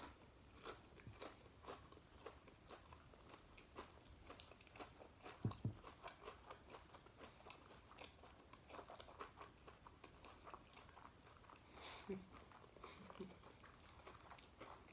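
A person chewing food close to the microphone: a steady run of faint, crisp crunches and mouth clicks, with a slightly louder knock about halfway through.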